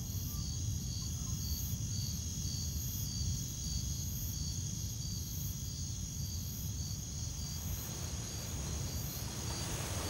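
Crickets chirping in an even rhythm, about three chirps a second, over a steady low rumble.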